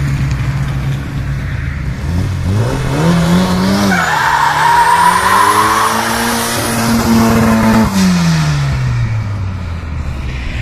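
Turbocharged square-body Volkswagen Gol launching in a drag run: the engine holds a steady note, rises as it pulls away about two and a half seconds in, dips at a gear change, then rises again with tyre squeal before the note drops near the end.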